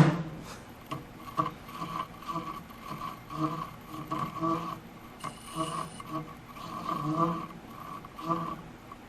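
Metal lathe at about 100 RPM with a high-speed steel parting blade fed by hand into a large workpiece. The blade chatters in short ringing pulses about twice a second, roughly once per turn of the part: the cut is chattering even under hand feed.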